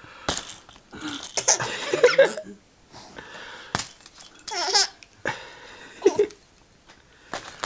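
Three-month-old baby laughing in bursts of giggles and squeals, with a few short sharp clicks as the hanging toys are hit.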